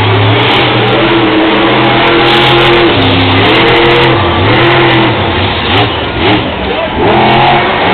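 Grave Digger monster truck's supercharged V8 revving hard, its pitch rising and falling over and over as the throttle is worked, with a few quick drops in between.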